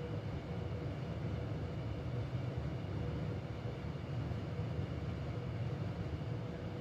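Steady low mechanical hum with a faint constant whine, unchanging throughout, like a fan or air-conditioning unit running in the room.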